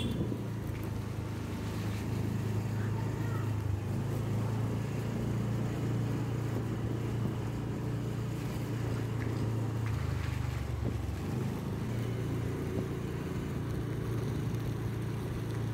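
Engine of a vehicle carrying the camera, running steadily at low road speed, with road and wind noise; the drone deepens for a moment about ten seconds in.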